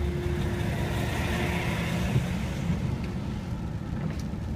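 Car driving slowly on a wet road, heard from inside the cabin: a steady low engine and road rumble with a hiss of tyres on the wet surface that swells and fades. A thin steady hum stops about two seconds in.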